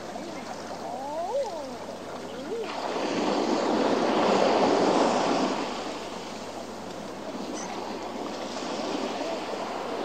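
Sea surging against a rocky shore: a wave builds about three seconds in, breaks and washes back, and the next begins to swell near the end. Before the first wave, a few short calls rise and fall in pitch above the water.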